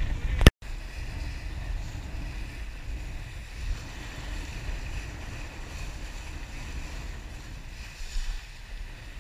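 Wind buffeting the microphone of a camera on a sailboat under sail, with water rushing past the hull. A sharp click and a moment of silence about half a second in.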